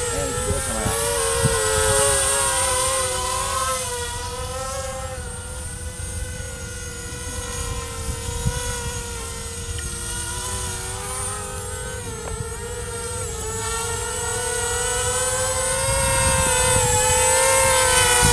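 Racing quadcopter's electric motors and propellers giving a steady whine, the pitch wavering as the throttle changes. It fades as the drone flies off and grows louder near the end as it comes back low and close.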